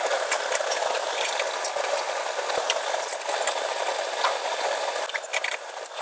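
Ratchet running in the brake caliper's guide pin bolts: a steady, rapid rattle of clicks, with a few sharper clicks near the end.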